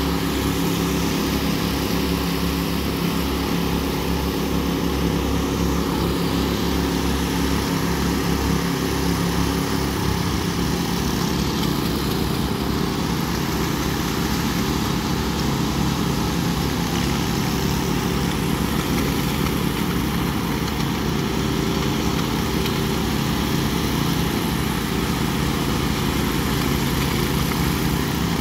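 Engines of walk-behind power trowels (helicopter trowels) running steadily as their blades float fresh concrete. The engine note changes about ten seconds in.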